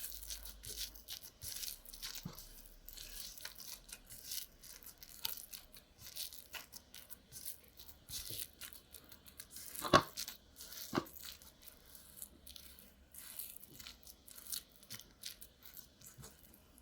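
Sticky homemade slime being stirred and pulled, giving a run of irregular soft tacky crackles as it tears and clings; the slime is still a bit too sticky. Two louder knocks sound about ten and eleven seconds in.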